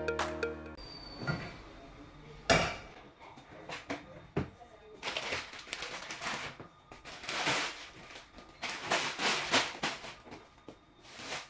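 A snatch of music cuts off under a second in. Then a cooking pot knocks once sharply on the stovetop, followed by repeated crinkling of plastic grocery bags and plastic-wrapped pasta packets being handled on the counter.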